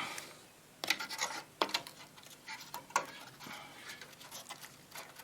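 Hand tools working on a valve radio chassis: a few sharp metallic clicks, the first about a second in, amid faint scratching and rubbing as old capacitors are cut out and a new one is fitted.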